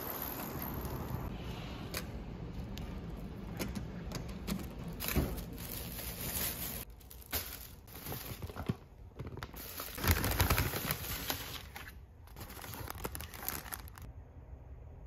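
Thin plastic shopping bag rustling and crinkling in uneven bursts as it is handled and opened, loudest about ten seconds in, then dying down near the end.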